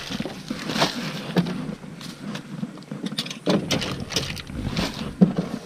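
Irregular clicks, knocks and rustles of fishing baits and tackle being handled and packed.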